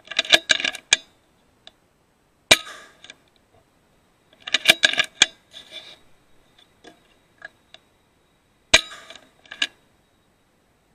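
FX Impact M3 .22 PCP air rifle firing three sharp shots inside a sheet-iron shed, at about a third, halfway and near the end. Each shot is followed by quick metallic clicks and clatter.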